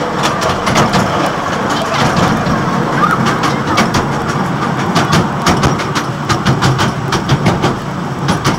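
Open passenger wagon of a small tourist train rolling along, with a steady rumble and many irregular rattling clicks from the wagon.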